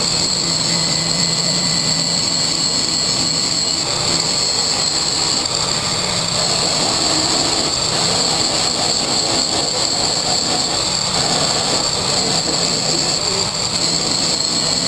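Angle grinder running steadily, its disc grinding the edge of steel angle iron to prep an edge joint for welding: a continuous high whine over a grinding hiss.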